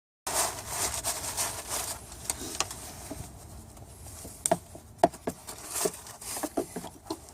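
Paper towel rustling and rubbing, loudest in the first couple of seconds, then a run of light clicks and taps.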